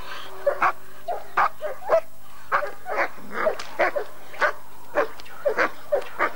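German shepherd barking rapidly and repeatedly, about two to three barks a second.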